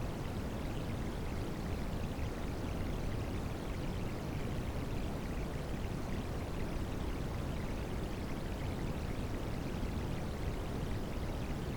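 Rain sounds blended with white noise: a steady, even rushing hiss, fuller in the low range, with no breaks or changes.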